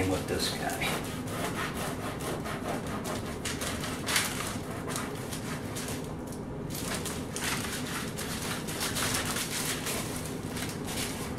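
A knife sawing back and forth lengthwise through a loaf of French bread, cutting through the crust in repeated strokes.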